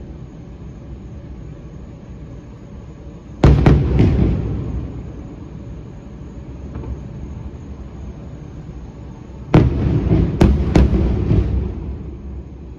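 Fireworks bursting: a quick cluster of sharp bangs about three and a half seconds in, and a second cluster of four bangs around ten seconds, each trailing off in a low rumbling echo.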